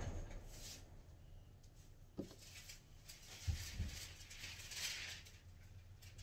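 Faint soft swishes and a few light thumps from hands wiping over the wet rear window glass, heard from inside the car.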